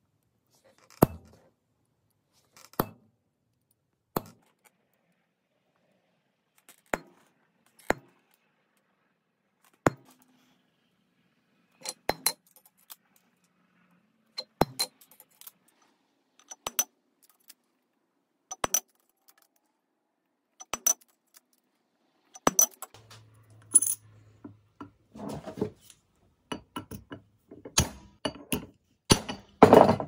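Hammer blows on steel punches, a cold chisel and letter stamps, driving a design into a thin copper disc on a steel anvil block. Single sharp metallic strikes with a short ring, every second or two, some in quick pairs, with quicker strikes and clatter near the end.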